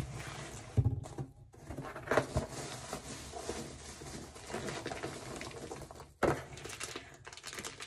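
Rustling and handling of plastic packaging while items are sorted out of a shipping box, with a light knock about a second in and a sharper one after about six seconds.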